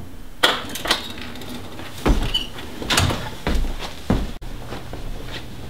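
Several irregular knocks and thumps, half a second to a second apart, then a faint steady hum.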